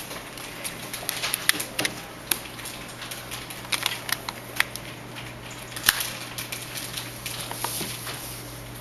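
Irregular light clicks and taps, a few in quick runs and one sharper one about six seconds in, over a steady low hum.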